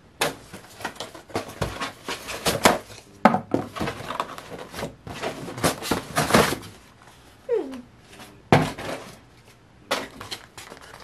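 Cardboard box and plastic packaging being torn open and handled: an irregular run of crackles and rustles, with a short falling squeak about seven and a half seconds in.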